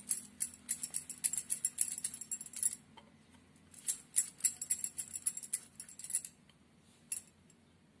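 Quick runs of jingling clinks from the hands as they roll dough balls smooth between the palms: two runs of about two to three seconds each, and a short one near the end.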